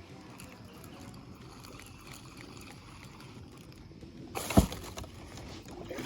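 Low water and kayak noise, broken about four and a half seconds in by a sudden loud thump with a short rush of noise.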